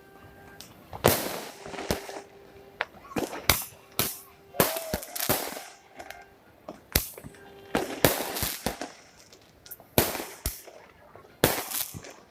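New Year fireworks going off: a dozen or so sharp bangs at irregular intervals, some followed by a hissing crackle. Between them a faint steady horn-like tone sounds on and off.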